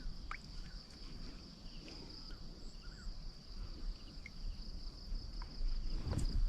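Insects calling with a steady, unbroken high-pitched drone, with a low thud about six seconds in.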